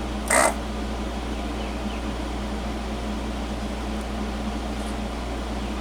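Desoldering machine's vacuum pump giving one short burst of suction about a third of a second in, clearing solder from a circuit-board hole, over a steady low hum.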